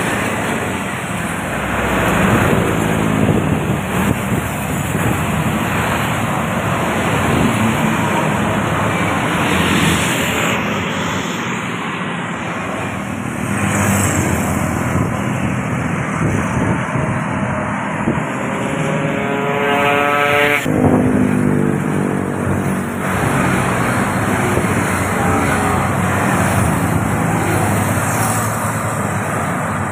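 Highway traffic passing close by: a steady stream of motorcycles and other road vehicles. One engine's note climbs as it speeds up past the middle and stops suddenly about two-thirds of the way through.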